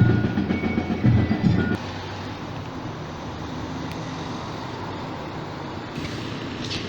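Street traffic: a vehicle engine runs loud for the first couple of seconds, then a steady wash of city traffic noise.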